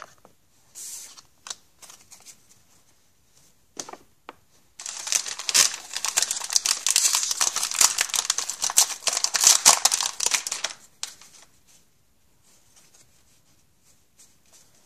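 Foil trading-card pack wrapper crinkling for about six seconds as it is handled, a dense crackle of quick clicks, after a few brief soft rustles.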